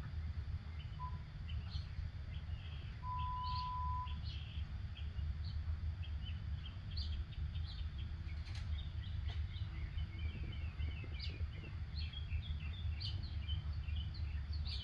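Small songbirds chirping and twittering in many short, quick notes, busier in the second half, over a steady low rumble. A single steady whistle-like tone sounds about three seconds in for about a second.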